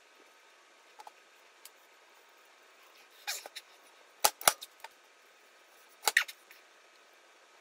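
Scattered sharp clicks and knocks of small hard objects being handled. The loudest are two sharp knocks about four and a half seconds in and a close pair about six seconds in.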